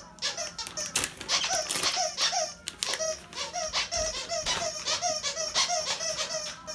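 Rubber squeaker in a plush dog toy squeaking over and over, about three squeaks a second, as a dog chews it, along with crackling of a plastic treat bag.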